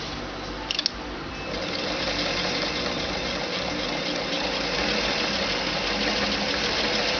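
Electric sewing machine stitching a seam: a few short clicks, then from about a second and a half in the machine runs at a steady speed with an even hum.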